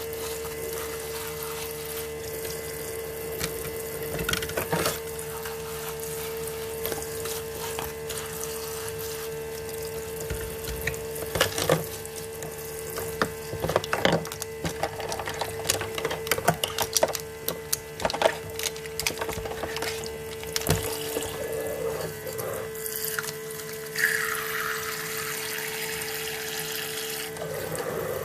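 Toy kitchen sink's small battery-powered water pump running with a steady hum while water trickles and splashes into the plastic basin, with scattered clicks and taps of small plastic parts through the middle stretch. The hum stops near the end.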